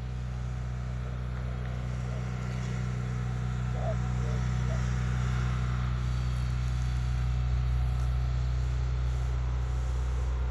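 A machine's motor running steadily with a low, even hum, growing a little louder over the first few seconds.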